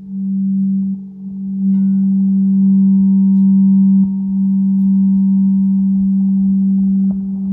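Metal singing bowl ringing with a steady low hum and higher overtones, the tone wavering slightly; a higher ring joins about two seconds in.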